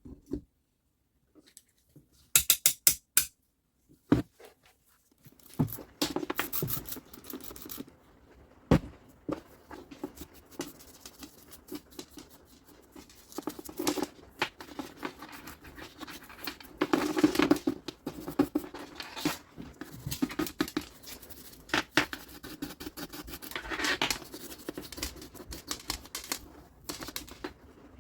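Hands working on small parts of a reciprocating saw: a quick run of sharp clicks about two to three seconds in, then scraping and rubbing with scattered clicks and knocks.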